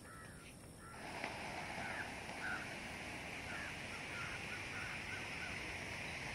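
Outdoor ambience: a steady hiss that sets in about a second in, with a run of short bird calls, several in quick succession.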